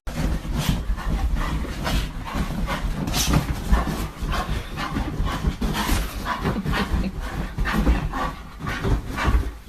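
A dog making a rapid, irregular run of short sounds over a constant low rumble.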